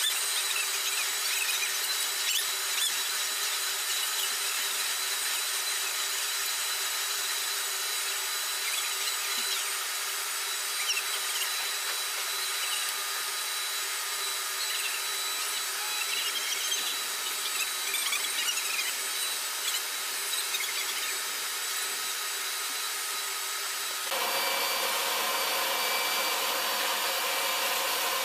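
Steady high-pitched whine and hiss of aircraft turbine noise on the flight line, with no deep rumble. About 24 seconds in the sound changes abruptly, as the view changes.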